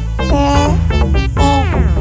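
Upbeat electronic background music: a synth melody in short repeated notes over a steady bass, with a falling pitch sweep in the second half.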